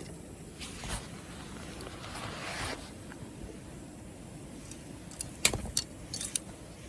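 Campfire burning: wood crackling, with a brief rustle about two seconds in and a quick run of sharp pops near the end.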